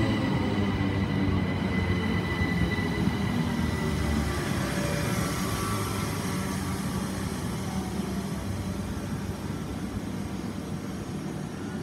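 Southern Class 377 Electrostar electric multiple unit standing at the platform, its onboard equipment giving a steady low hum that gradually gets quieter.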